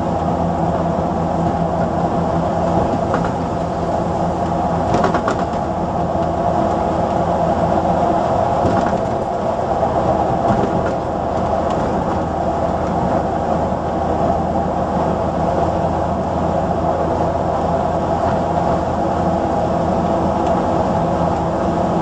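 AEC 9.6-litre six-cylinder diesel of a London Transport RT double-decker bus running steadily as the bus travels at an even speed, heard from inside the upper deck with wind noise on the microphone.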